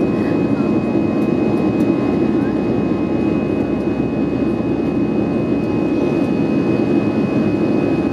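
Airbus A320 jet engines heard from inside the passenger cabin: a loud, steady rushing drone with a thin, constant high whine over it.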